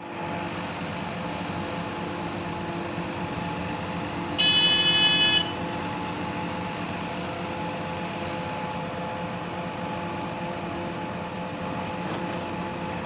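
Mobile crane's engine running steadily, with a horn sounding once for about a second about four seconds in; the horn is the loudest sound.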